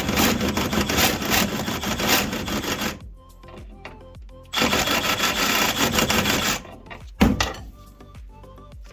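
Scraping rust and road debris off a body-to-chassis bolt head in two long bouts, followed by a sharp knock about seven seconds in. The caked debris is what made the bolt head too big for its socket.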